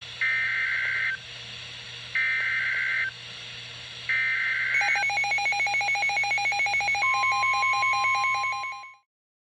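Emergency Alert System header: three one-second bursts of screechy data tones a second apart, then a rapidly warbling alert tone. A steady tone joins about two seconds after the warble starts, and both cut off together about nine seconds in. A low hum runs underneath.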